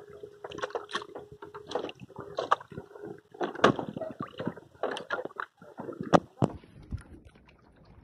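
Water splashing and slapping against a paddled canoe's hull, with paddle strokes in the water: irregular splashes and knocks, a few sharp loud ones in the middle, quieter near the end.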